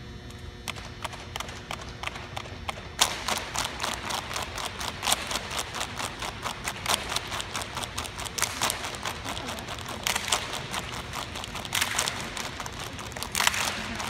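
A step team beating out a quick, steady rhythm of hand claps and slaps in unison, faint at first and louder from about three seconds in. A few short bursts of crowd noise break in near the end.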